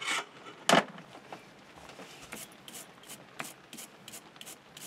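Two sharp metal clanks about a second apart, then a run of light scraping strokes, about three a second, as a hand tool is rubbed back and forth over a freshly die-cut thread on a small steel shaft held in a lathe chuck.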